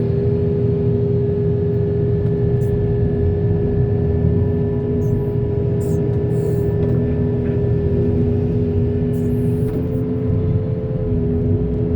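Heavy machine's diesel engine running steadily, a low rumble with a steady whine above it and a few faint clicks.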